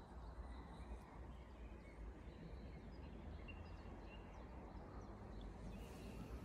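Quiet forest ambience: a few faint, short bird chirps over a steady low rumble.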